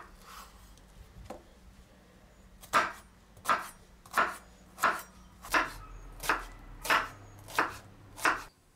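Chef's knife chopping an onion on a wooden cutting board. A couple of separate cuts come first, then from about three seconds in a steady run of knife strikes on the board, about three every two seconds.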